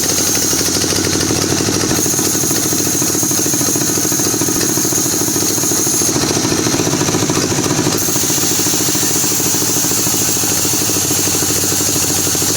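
Engine of a power saw running steadily, with a steady high whine above its rough running note.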